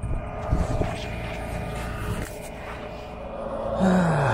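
Flatbed tow truck's engine running at the roadside, a steady low rumble with a steady whine that grows louder near the end, and a brief falling tone just before the end.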